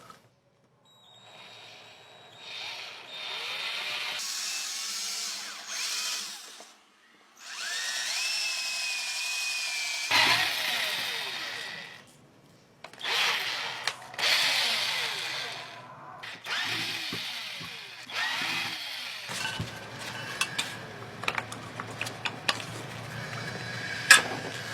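A small electric motor running in several short bursts of whirring, one of them spinning up to a steady high whine and then winding down as it stops. Toward the end come scattered clicks and knocks of metal parts being handled.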